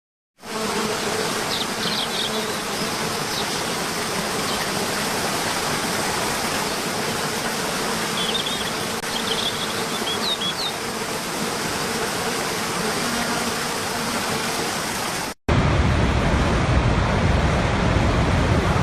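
Steady rush of falling water from a waterfall, with a few short high bird chirps over it. About fifteen seconds in it cuts off abruptly and a louder, deeper rushing begins.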